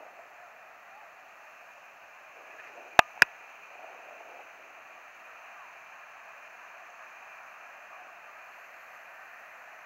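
Steady beach ambience, a soft even wash of noise, broken about three seconds in by two sharp clicks a quarter-second apart.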